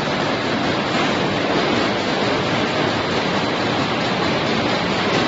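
Chewing gum making machine line running: a steady, even noise with no distinct rhythm or beat.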